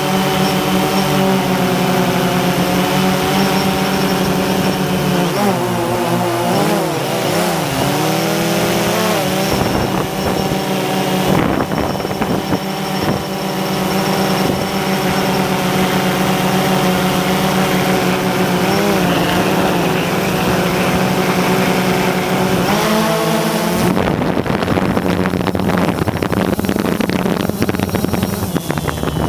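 Quadcopter drone motors and propellers whining steadily, the pitch wavering up and down several times as the motors change speed. About three-quarters of the way through, the whine gives way to a rougher rushing noise.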